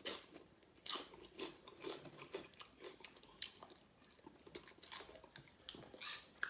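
A person chewing crunchy nacho tortilla chips close to the microphone: a string of irregular, crackling crunches.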